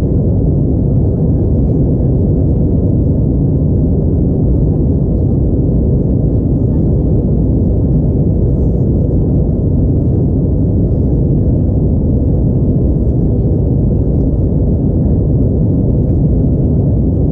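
Steady low drone inside the passenger cabin of an Airbus A321neo in flight: its CFM LEAP-1A turbofan engines and the rush of air past the fuselage, heard from a window seat by the wing.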